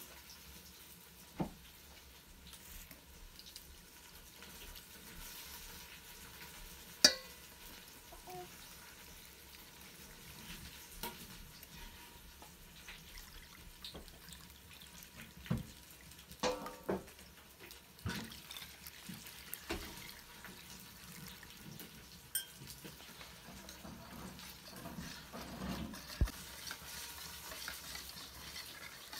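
Food preparation in a steel bowl: semolina and water poured in, scattered knocks of a wooden bowl and utensils against the steel, the loudest a sharp knock about seven seconds in. Near the end a wire whisk stirs the semolina and water into a thin batter.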